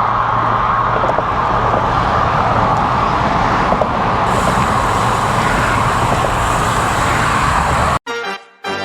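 Steady wind and road noise picked up by a GoPro on a moving road bicycle, with passing traffic mixed in. About eight seconds in it cuts off abruptly and accordion music starts.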